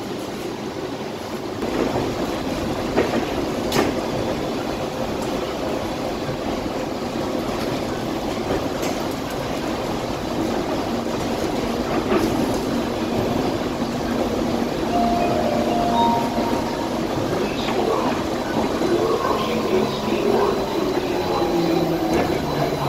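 Skylink automated people mover car running along its guideway, heard from inside the car: a steady running noise, with a couple of sharp clicks a few seconds in and faint whining tones past the middle.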